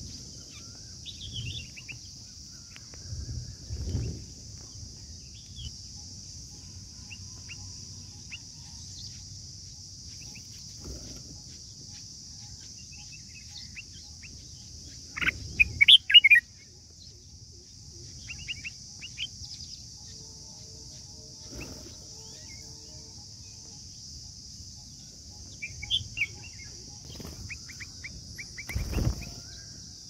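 Red-whiskered bulbuls chirping at the nest during a feeding: scattered short chirps, with a loud cluster about halfway through and a few more near the end, over a steady high hiss. A soft thump near the end.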